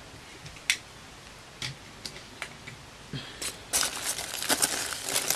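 A few light clicks and taps, then from about three and a half seconds in, plastic zip-top bags crinkling steadily as a hand rummages through them among foam packing peanuts.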